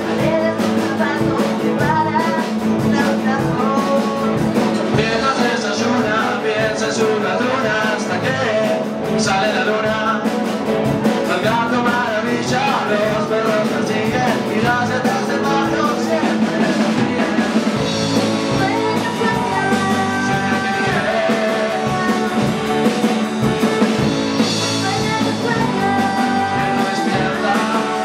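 Live rock band playing a song: singing over electric guitars, bass, drum kit and keyboard.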